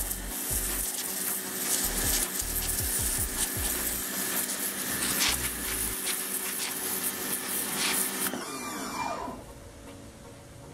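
Dedra 1900 W electric pressure washer running: the motor and pump hum steadily under the hiss of the water jet blasting rubber boots. About eight seconds in the trigger is released, the spray cuts off and the motor winds down with a falling whine.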